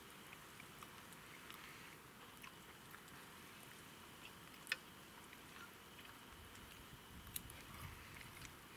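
Faint chewing and small mouth clicks of people eating pieces of fried meat, with one sharper click a little past halfway.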